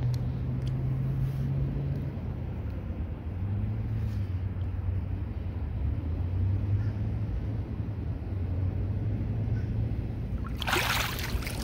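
Steady low hum throughout, with a sudden loud rush of noise lasting about a second near the end.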